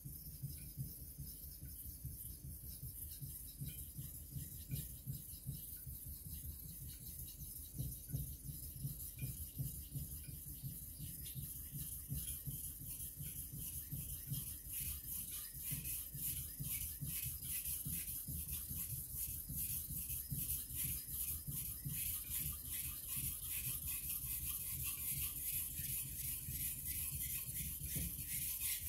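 Takamura Chromax knife blade being stroked back and forth on a water stone: a rhythmic rasping scrape, a few strokes a second, growing louder toward the end.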